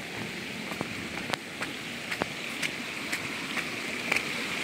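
Small muddy rainy-season stream rushing over a hillside path: a steady hiss of running water that grows louder toward the end, with scattered sharp ticks.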